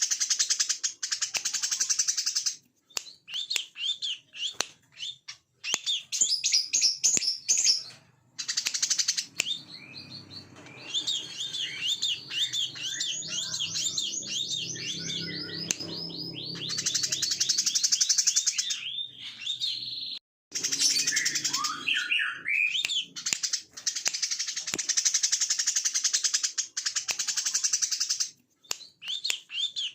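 Brown-throated sunbird singing its rapid 'ngebren' song: long, fast buzzing trills alternating with runs of quick repeated chirps, broken by short gaps. A faint low rumble sits underneath in the middle.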